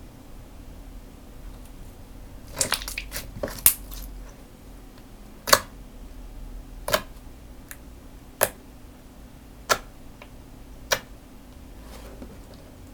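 Slime being squished and poked by hand, giving a burst of crackling pops about two and a half seconds in, then single sharp pops roughly every second and a half.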